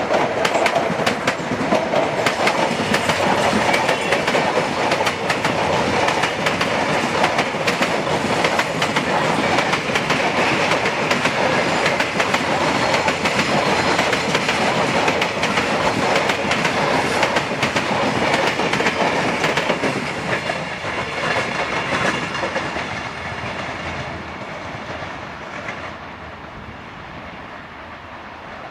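Unpowered Alstom X'Trapolis Mega electric commuter sets being hauled past, their steel wheels rolling on the rails with many quick clicks. The sound is steady and loud, then fades from about twenty seconds in as the train moves away.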